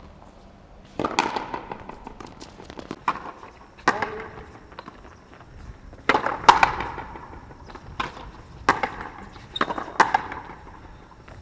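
Frontenis rally: the hollow rubber ball cracking off rackets and the fronton wall, about eight sharp, echoing cracks spaced a second or two apart.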